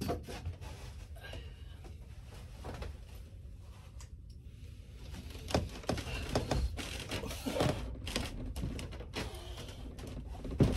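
A person moving about on a wooden deck and getting up onto an overhead workout bar: scattered footsteps, knocks and clicks, busier in the second half, over a steady low rumble.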